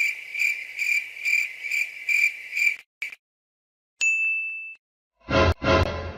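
Cricket chirping sound effect: a high chirp repeating about twice a second, which stops near the three-second mark. About four seconds in comes a single bright ding, and near the end a short, loud, noisy sound.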